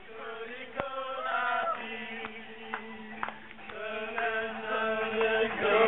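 Several voices chanting together, a low note held steadily beneath overlapping higher voices, with a couple of sharp clicks.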